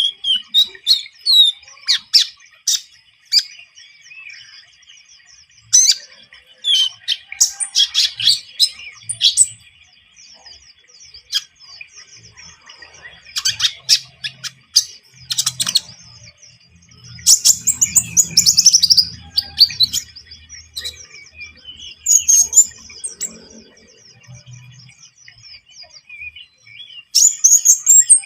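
A konin (kolibri ninja sunbird) singing vigorously: bursts of fast, very high-pitched chirps and trills, broken by short pauses, over a faint steady high background tone.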